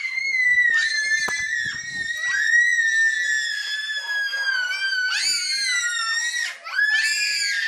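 A young girl's high-pitched scream, held almost without a break and sinking slowly in pitch, with shorter shrieks overlapping it past the middle and near the end.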